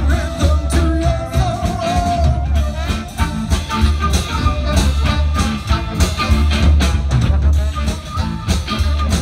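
Live band playing an upbeat swing-ska number with electric guitar, drum kit, flute, trombone and saxophone. A steady drum beat runs under the melody.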